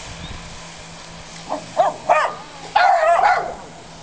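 A dog barking: a few short barks in quick succession, then a longer, drawn-out bark near the end.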